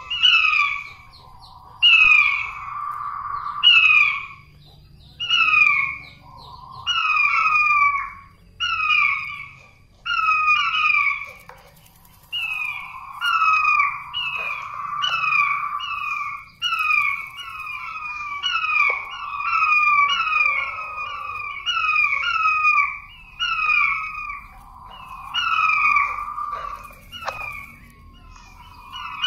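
Puyuh batu calling over and over: loud clusters of quick, falling whistled notes about every one to two seconds, with a rolling trill between many of them. This is the bird's lure call.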